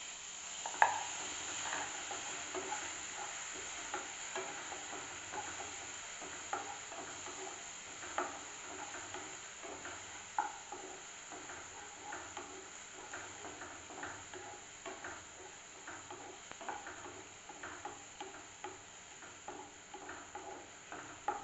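Wooden spatula stirring ginger-garlic paste in hot butter in a kadai: a steady sizzle with frequent light knocks and scrapes of the spatula against the pan, the sharpest about a second in.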